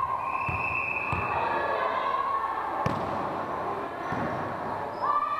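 A volleyball bounced on a wooden gym floor, a thud about every 0.7 s. Then a steady referee's whistle for about a second, and a single sharp slap of the ball being served near the middle. Voices echo in the hall behind, and a shout of players' voices comes near the end.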